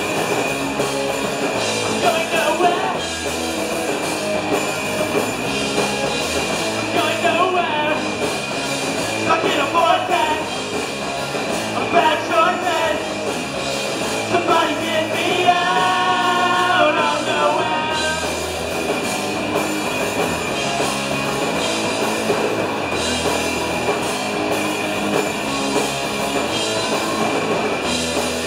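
Punk rock band playing live: distorted electric guitars, bass and drums, with sung vocals over roughly the first two-thirds, then instrumental.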